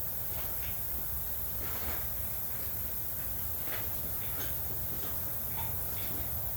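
Faint, scattered clinks and scrapes of metal parts and hand tools being handled, over a steady low hum.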